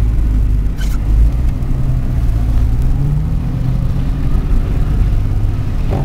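Car engine and road noise heard from inside the cabin while driving: a steady low rumble, with the engine note rising about halfway through as the car picks up speed. A single brief click about a second in.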